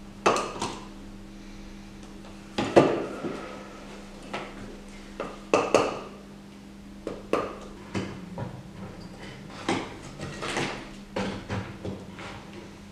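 Chisel knocking into a plaster waste mold to chip it off a cast portrait head: about a dozen sharp knocks at irregular intervals, each followed by plaster fragments cracking off and clattering onto the bench.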